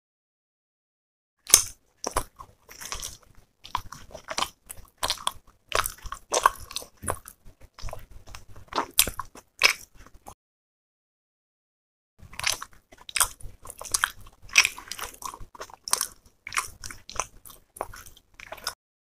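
Close-miked chewing and wet mouth sounds of a person eating roti with chicken masala curry, a dense run of small clicks and smacks. It stops dead for about two seconds around ten seconds in, then resumes.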